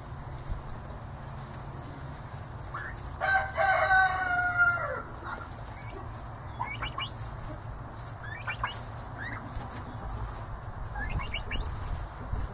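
Young turkeys trilling and peeping while they feed on grass. One long, loud trilling call comes about three seconds in, followed by several short rising peeps, with light pecking and rustling in the grass throughout.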